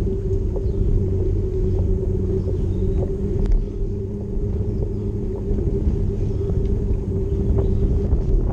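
Steady low rumble with a constant mid-pitched hum from a vehicle carrying the camera along a bumpy riverside path, with small knocks here and there.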